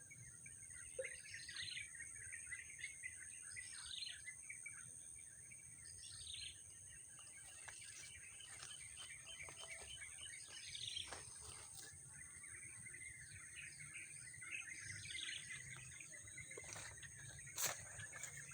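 Several birds chirping: one repeats a short sweeping call every two to three seconds over a busier chatter of twittering, with a steady high-pitched hum underneath and a single sharp click near the end.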